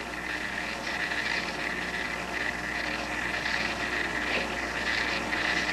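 Steady hiss and electrical hum of an old home-video tape recording, with a constant high whine and no distinct event.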